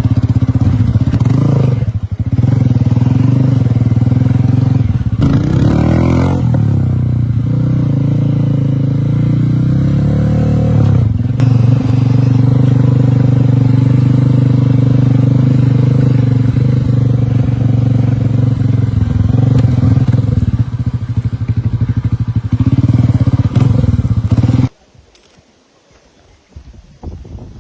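Classic scrambler motorcycle engine running, its pitch dipping and rising a few times, then stopping abruptly near the end.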